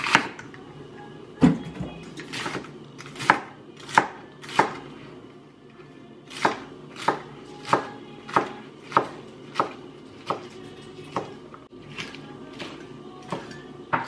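Kitchen knife chopping on a cutting board: about eighteen single sharp strokes at an unhurried, fairly even pace, one every half second to a second.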